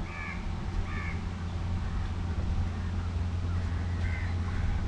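A bird gives three short calls: one at the start, one about a second in and one about four seconds in. A steady low rumble runs underneath.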